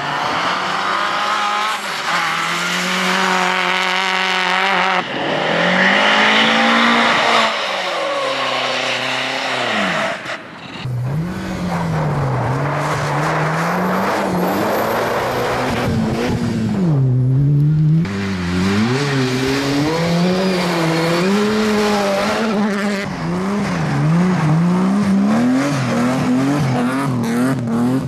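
Rally cars driven hard through corners on snow: engines revving up and down, the revs swinging repeatedly as they are throttled through slides, one car after another with abrupt cuts between them. Among them are a Mitsubishi Lancer Evolution and a BMW E30 M3.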